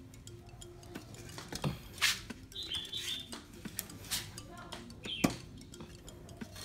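Irregular metal clicks and clinks of a hand spanner working the bolts on a cut-open air-conditioner compressor's bearing housing, with two sharper knocks about two seconds in and just after five seconds.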